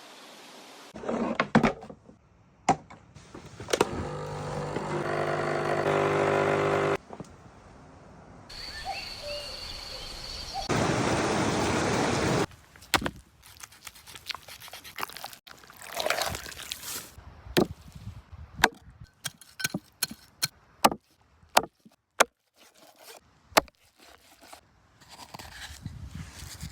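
A run of food-preparation sounds in separate short clips: sharp knocks and taps, with two stretches of steady hiss.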